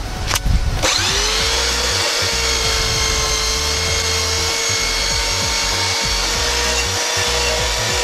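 Handheld electric sander starting up about a second in, its motor winding up to a steady high whine and running on as it sands back the old paint of a tandem bike frame.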